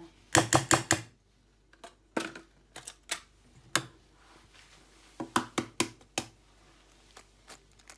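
Short sharp taps and clicks of kitchen utensils against a ceramic bowl: a quick run of about four taps half a second in, single clicks between, and another run of about five taps between five and six seconds in.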